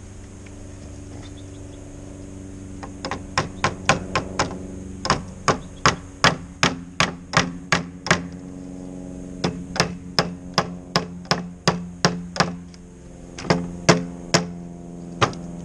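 Repeated hammer blows driving a glued PVC fitting onto a pipe to seat it, sharp strikes in runs of several at about two to three a second with short pauses, starting about three seconds in. A steady low hum runs underneath.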